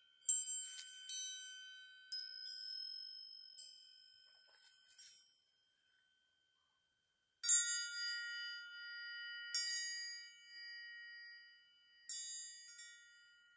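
Small handcrafted hanging bells struck one after another: several separate high, clear strikes, each ringing on and fading away, the loudest about seven seconds in.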